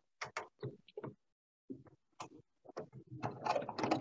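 Irregular small clicks and clacks from parts being handled inside a serger as a removed piece is fitted back into place. The clicks come thicker near the end.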